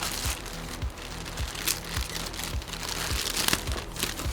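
Background music with a steady beat, over the crinkling and rustling of packaging being torn open.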